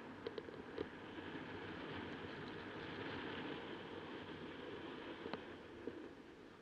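Air rushing past the camera as a paraglider flies at about 30 km/h, a steady muffled hiss with a few faint clicks, one just after the start and one about five seconds in.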